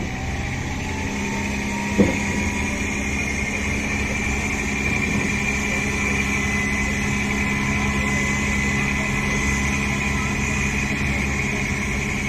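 Fishing boat's inboard diesel engine running steadily at low revs, a constant hum with a high whine over it. One sharp knock about two seconds in.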